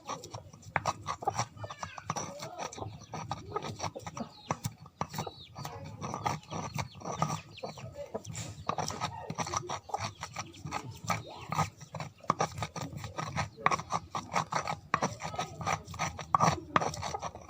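Turmeric and garlic being crushed by hand for a herbal remedy: a rapid, irregular run of knocks.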